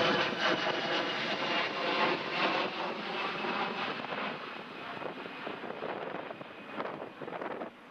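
Airplane engines running on a landing in strong wind, a dense rushing noise with a steady whine that slowly fades.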